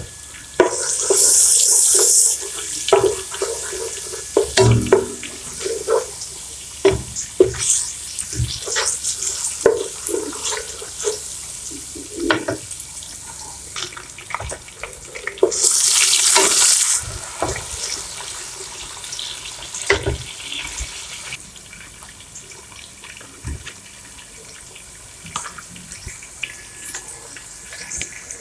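Oil sizzling in a non-stick pot as onions, ginger-garlic paste and chopped tomatoes fry, with repeated knocks and scrapes of a utensil against the pan. Two short bursts of loud hissing come about a second in and again about sixteen seconds in.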